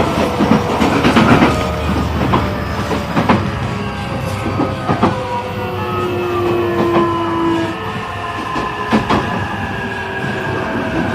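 E531-series electric train heard from inside a motor car as it slows into a station. The traction motors whine in several tones that slide slowly down in pitch as the train brakes. Underneath is a steady low rumble of the wheels, with sharp clicks as they cross rail joints.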